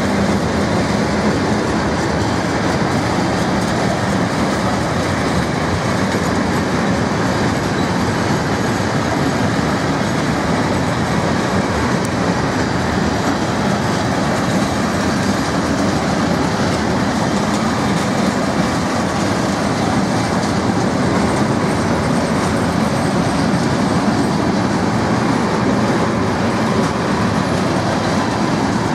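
A freight train of covered sliding-wall wagons rolling past close by: a steady, loud noise of wheels running on the rails and the wagons rattling.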